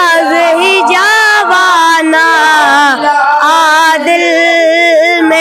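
A boy singing a naat (Urdu devotional poem in praise of the Prophet) solo without instruments, drawing out long melismatic notes that waver and glide between pitches.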